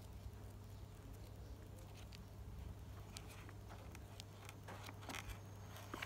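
Aged paper pages of an old printed book being turned by hand: a few soft rustles and flicks of paper, busiest in the second half, over a low steady hum.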